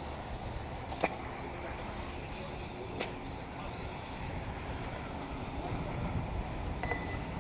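Wind rumbling on the microphone over the faint running of 1/10-scale four-wheel-drive RC buggies on the track, with a faint rising whine a few seconds in. A sharp click about a second in, and another about three seconds in.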